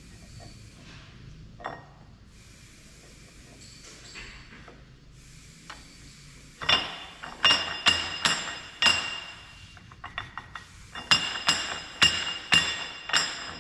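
Steel parts of a ZF 16 S 221 truck gearbox knocked together by hand during assembly: quiet at first, then from about halfway a run of sharp metallic clinks, roughly two a second, each ringing briefly.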